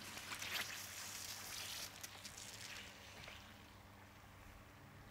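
Water splashing and bubbling at the pool surface as the automatic pool cleaner's hoses fill and sink. It is loudest in the first two seconds, then fades to a faint trickle.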